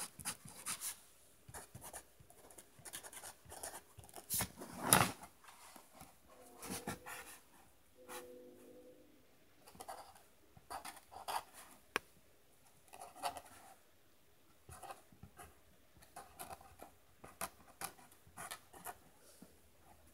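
Pen scratching across paper in short, irregular strokes as words are handwritten, with one louder knock about five seconds in.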